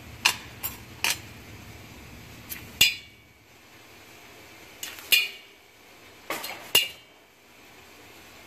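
Glass rods clinking against each other and the bench as a clear rod is picked up and handled: about ten sharp clinks, mostly in quick pairs, over a steady low hiss that drops away about three seconds in.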